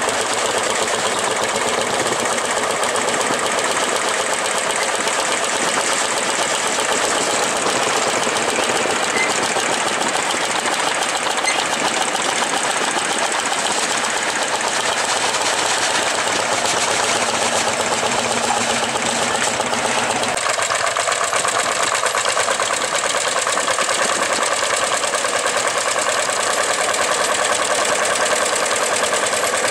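Lanz Bulldog tractors' single-cylinder two-stroke hot-bulb engines running under load while pulling ploughs, a fast steady pulsing beat. The sound changes abruptly about two-thirds of the way through as a second Bulldog is heard.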